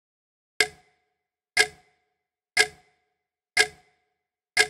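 Clock ticking sound effect: five sharp ticks, one each second, each with a brief ring.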